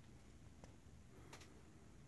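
Near silence: faint room tone with a few soft clicks, one about two thirds of a second in and a closely spaced pair a little after a second in.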